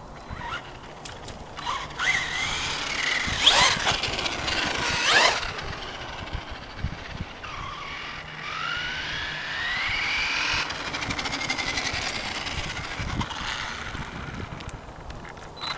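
Brushless electric motor of an RC monster truck (FS Racing Victory X, 3000kv) whining as it speeds up and slows, its pitch rising and falling, with tyre noise on asphalt. Twice, a few seconds in, the whine sweeps sharply up and down as the truck passes close, and about halfway through it winds up in a long rising whine.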